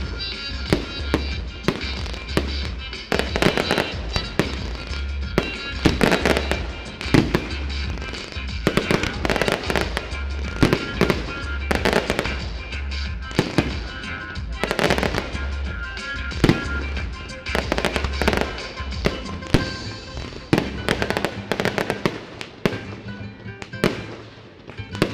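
Fireworks display: many sharp shell bursts and crackles in quick succession, over music with a pulsing bass beat that drops out near the end.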